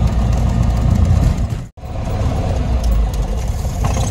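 Cessna 172's piston engine and propeller running at low power on the ground, a steady heavy drone heard from inside the cabin. The sound drops out abruptly for a moment a little under two seconds in, then carries on.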